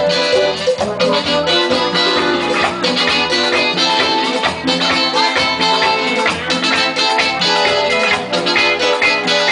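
Live Latin-style band playing: congas and guitar over a steady shaker rhythm.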